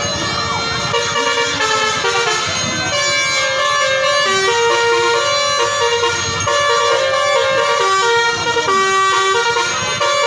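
Bus basuri telolet horn, a multi-tone air horn playing a melody: loud steady notes that jump from one pitch to the next in quick steps.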